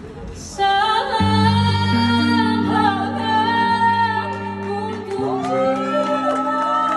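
A woman singing a slow held melody over acoustic guitar, the voice coming in under a second in.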